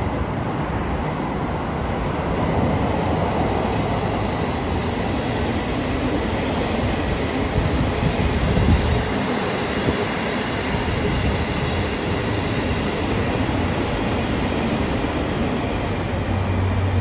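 Electric passenger trains running past on elevated track, giving a steady noise of wheels on rails: first a red electric multiple unit, then a silver JR Kyushu 783 series limited express.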